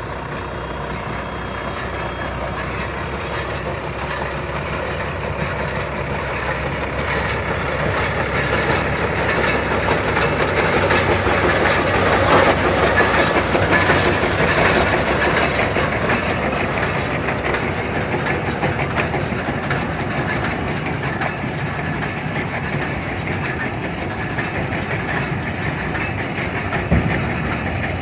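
Round baler running: a steady mechanical clatter over an engine hum, growing louder toward the middle and easing off again, with a single knock near the end.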